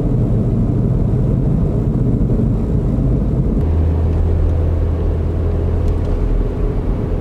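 Car driving at speed heard from inside the cabin: a steady low engine and road rumble. The low hum changes pitch abruptly about three and a half seconds in.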